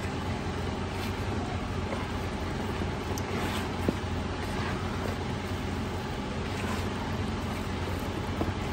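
Hands squishing and turning spice-coated raw chicken pieces in a plastic bowl, with a single sharp click about four seconds in, over a steady low background rumble.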